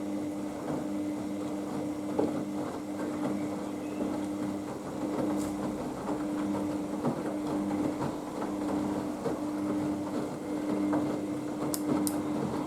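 Haier HWD 120 washer-dryer in the main wash of its 15-minute express programme: the drum motor runs with a steady hum while the wet laundry tumbles and sloshes in the drum. Two short clicks near the end.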